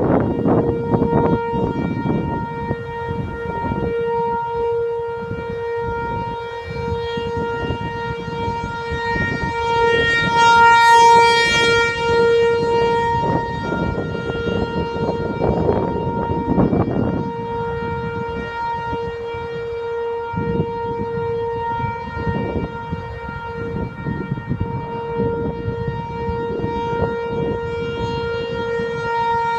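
ASC T-128 outdoor warning siren sounding a steady, unwavering tone, the alert signal. Its loudness swells and fades as the rotating head turns toward and away, peaking about a third of the way in and again at the very end.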